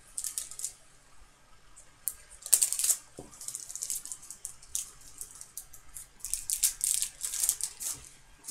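Foil hockey card pack crinkling as it is torn open by hand, with the sharpest rip about two and a half seconds in, then a run of crinkling and rustling as the cards are pulled out and handled.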